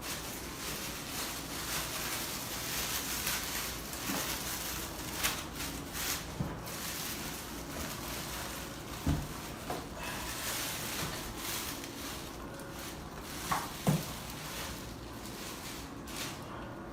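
Rustling as a boxed loudspeaker is unpacked and handled, with a few light knocks as it is moved and set down.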